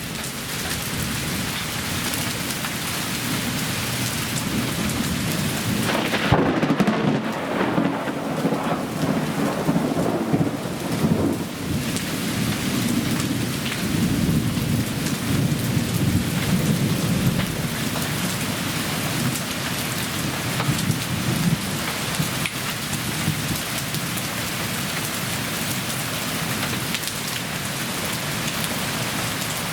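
Heavy hail and rain pounding steadily on surfaces during a severe thunderstorm, a dense hiss of many small impacts. Thunder rumbles low about six seconds in, lasting several seconds, and again briefly a little later.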